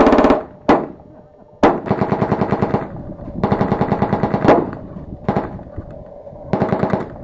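Fully automatic machine-gun fire in repeated bursts of rapid shots. A burst ends just as it begins, a single shot follows, then three more bursts of about a second each with short gaps between.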